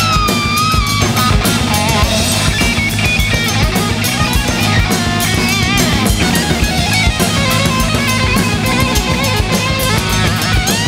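Hard rock drum kit with titanium shells played hard in a steady driving beat, over a backing recording with electric guitar bending and sliding notes and a bass line.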